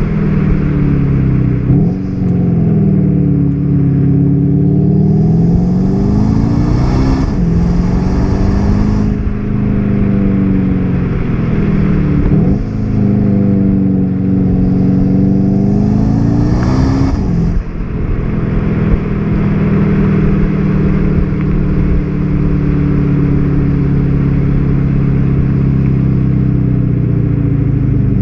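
Volkswagen Golf 7 GTD's turbodiesel four-cylinder accelerating hard through the gears: the engine note climbs with the revs and drops at each of about four gear changes. In the last ten seconds it settles into a steady drone.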